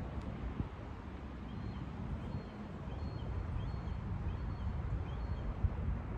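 Low rumble of wind on the microphone, with a bird faintly calling a run of short, high notes about twice a second from shortly after the start until near the end.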